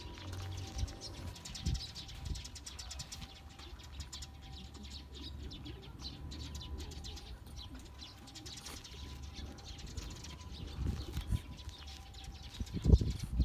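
Birds chirping over a low steady rumble, with a short burst of louder noise near the end.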